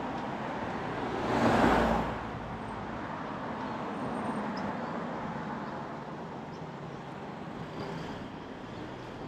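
A vehicle passing close by about a second and a half in, rising and fading within about a second, over steady street-traffic noise.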